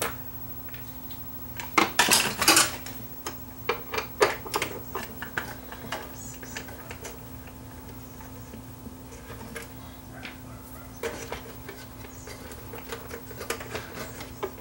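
Screwdriver work on small screws in a CD changer's sheet-metal chassis: light metallic clicks and clacks, with a quick cluster of sharper clacks about two seconds in and scattered ticks after, over a faint steady hum.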